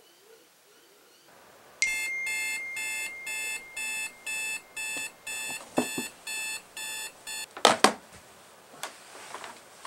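Bedside alarm beeping in an even repeating pattern, about two beeps a second, for several seconds. It stops with two sharp knocks as a hand reaches for it.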